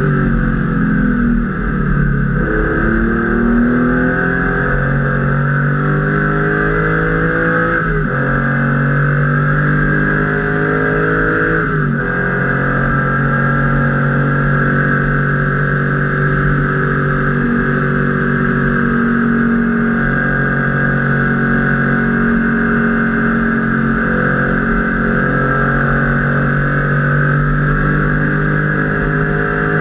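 Porsche 993 RS Club Sport's air-cooled flat-six heard from inside the cabin under hard acceleration. The revs climb for several seconds and drop sharply with an upshift about eight seconds in and another about twelve seconds in, then hold fairly steady with slow rises and falls. A constant rush of wind and road noise runs underneath.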